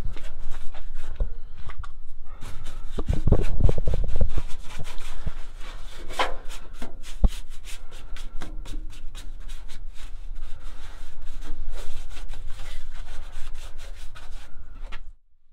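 A small brush scrubbing and dabbing rust cure onto the welded steel floor seams of a classic Mini, in quick, repeated scratchy strokes with a few heavier knocks. It stops abruptly near the end.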